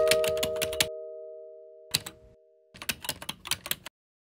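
Keyboard typing sound effect: a quick run of key clicks, a short pause, a couple of clicks, then another run, cutting off suddenly. A held electric-piano chord fades out under the first clicks.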